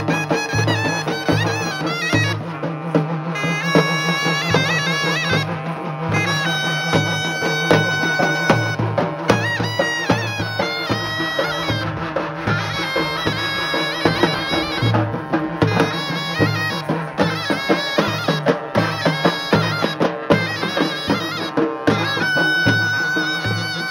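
Live South Indian folk festival music: a reedy wind instrument plays a wavering melody over a steady drone, while two-headed barrel drums beat a steady rhythm about twice a second.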